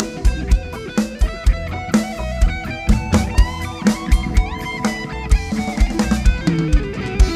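Live rock band: an electric guitar played through a Marshall amp takes a lead line with bent notes over a drum kit with a steady kick and cymbal beat.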